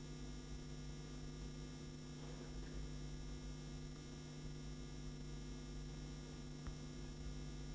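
Steady low electrical mains hum with quiet room tone, and one faint click near the end.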